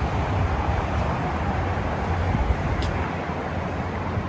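Steady outdoor road-traffic noise with an uneven low rumble that eases about three seconds in.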